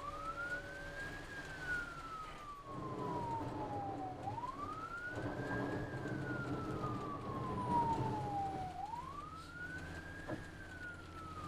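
Ambulance siren in wail mode: its pitch rises quickly, then falls slowly, over and over, about every four and a half seconds, with three rises in all. Underneath is the low rumble of the vehicle on the move.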